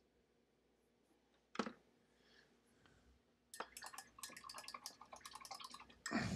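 Handling noise of plastic model parts: one sharp click, then about two and a half seconds of rapid small clicks and rattles as a plastic sprue and miniature parts are moved between the fingers, ending in a short louder rush of noise.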